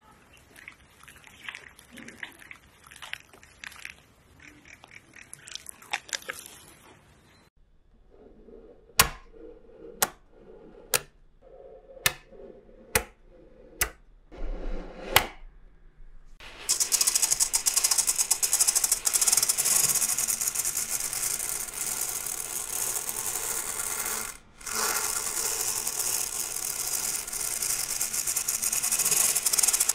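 Soft, scattered crunching of fingers pressing into sand, then small neodymium magnet balls snapping together in sharp clicks about once a second. After that comes a loud, dense, steady rattle of many small hard pieces clattering, broken once briefly about three-quarters of the way through.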